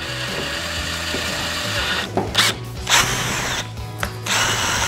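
Cordless drill spinning a wooden dowel bit pressed into sand on a river rock, used as an improvised abrasive drill. The drill runs steadily for about two seconds, then in several short spurts, starting and stopping.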